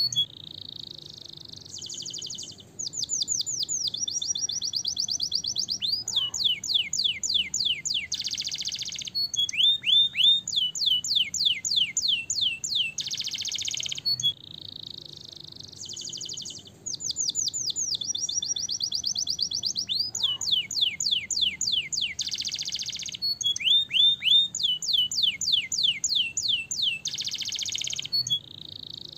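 Domestic canary singing in long rolling trills: rapid runs of repeated down-slurred notes alternating with dense buzzy rolls, phrase after phrase. The same stretch of song comes round again about every fourteen seconds.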